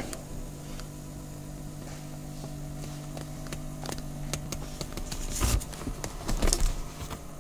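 Electric power seat motor in a 2003 Chevy Tahoe running steadily as the memory seat travels, a low even hum that stops just before the end. A few knocks and rustles of handling come near the end.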